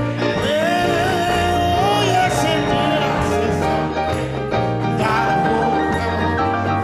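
Live gospel praise band playing: electric guitars and keyboard over a steady bass line, with a lead melody that slides between notes in the first few seconds.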